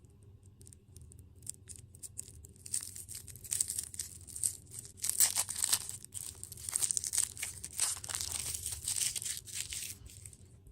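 Plastic packaging crinkling and tearing close to the microphone: dense, uneven crackling that builds about two seconds in and fades near the end.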